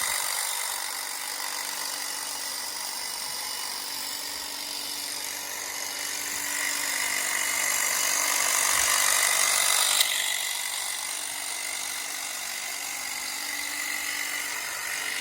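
Ego cordless telescopic hedge trimmer running, its blades cutting through a hedge with a steady buzzing hiss. It swells louder for a few seconds, then drops back after a sharp click about ten seconds in.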